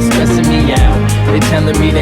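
Hip hop song with a steady bass-heavy beat; a rapped vocal comes in near the end.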